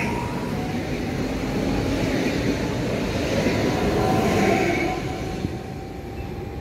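PESA Elf EN76 electric multiple unit running past along the platform, its wheels rolling on the rails, then fading as the last car goes by about five seconds in.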